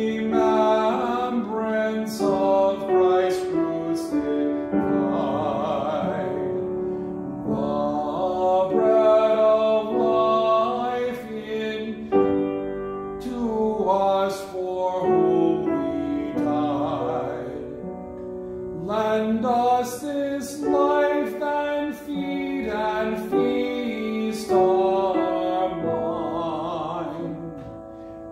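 A man singing a slow hymn solo, accompanied on piano, his held notes sung with vibrato.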